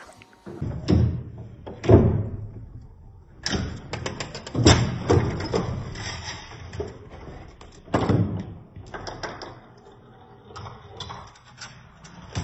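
A homemade Rube Goldberg machine running, its parts knocking, clattering and thumping one after another. There are single hard hits about one and two seconds in, a quick rattling clatter a little later, and another hit about eight seconds in, followed by lighter ticks.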